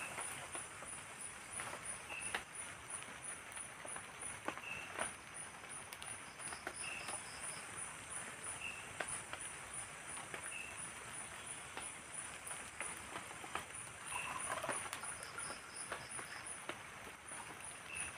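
Night forest ambience in light drizzle: a high-pitched insect trill pulsing a few times a second, a short chirp repeating about every two seconds, and a soft patter of rain with scattered drips.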